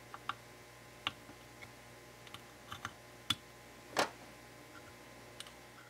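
Faint, scattered small clicks and ticks of a small bladed screwdriver working the plastic locking clip of a ribbon-cable connector on a circuit board, with a slightly louder, longer knock about four seconds in.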